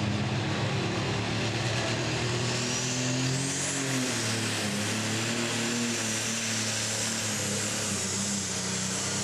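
Diesel pulling tractor running hard as it pulls the sled down the track. The revs climb about three seconds in, with a thin rising whistle over the engine, then the engine runs steady under load.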